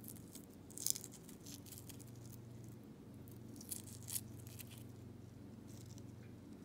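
Faint crackling and crinkling of a boiled quail eggshell and its membrane being peeled off by fingers, in short bursts, sharpest about a second in, over a low steady hum.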